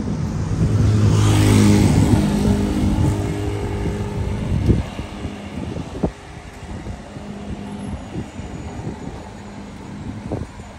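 A motor vehicle passing close by on the road: engine hum and tyre noise swell to a peak about a second and a half in and fade over the next few seconds, over steady city traffic. A few sharp clicks come later.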